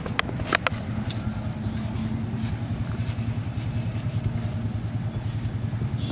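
An engine running steadily with a low, even drone. A few sharp clicks sound in the first second, fitting plastic jar and bag handling close by.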